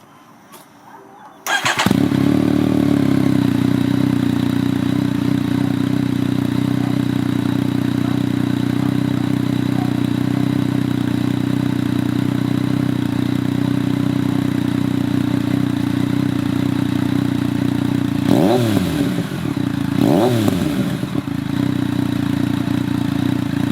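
Yamaha FZ-09's 847 cc inline-three with a newly fitted M4 aftermarket exhaust starting up about a second and a half in and idling steadily, then revved twice near the end, each blip rising and falling quickly.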